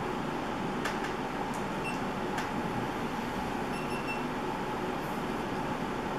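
Steady background noise like a fan or air conditioning, with a few faint clicks and faint short high tones about two and four seconds in.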